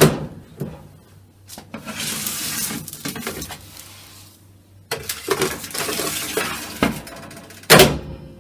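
Oven door of a gas cooker opening with a loud clank, then a metal baking tray scraping along the oven rack as it is pulled out. The oven door bangs shut near the end.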